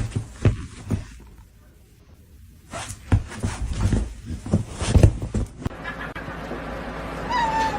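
Irregular knocks and thumps in two clusters, the first about a second long and the second about three seconds long, with a quiet gap between them.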